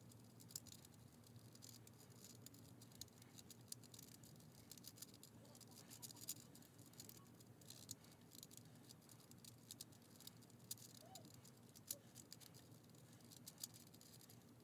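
Faint, irregular clicking and clacking of a tiny 3D-printed plastic 5x5 twisty puzzle, its layers being turned by hand.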